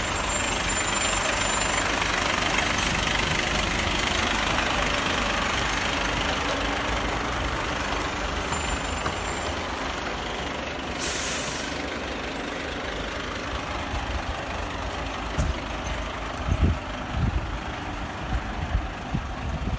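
Fire engine's diesel engine running close by, a steady rushing noise that eases off after about ten seconds. A few low thumps come in the last few seconds.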